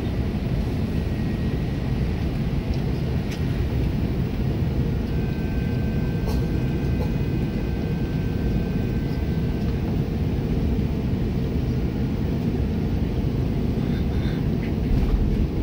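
Steady low rumble of an Airbus A330's engines and rushing air, heard inside the passenger cabin on short final approach, rising slightly near the end.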